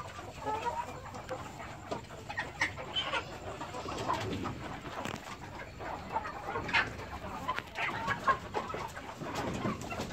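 A flock of chickens clucking and calling, with short, scattered calls at different pitches from several birds.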